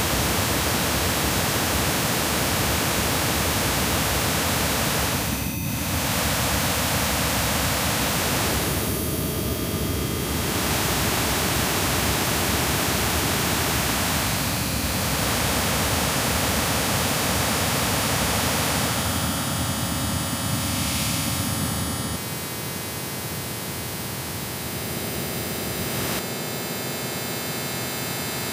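Harsh noise music: a dense wall of hiss and static, spread across the whole range from low to high, that switches texture abruptly every few seconds and drops a little in level about two-thirds of the way through.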